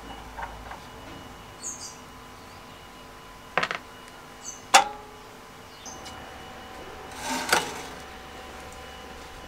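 Small metal parts of a rusty mower handle bracket being handled as its nut and washer come off the bolt. Two sharp clicks come partway through, the second a short ringing metal clink, followed by a brief scraping rustle. Faint bird chirps sound in the background.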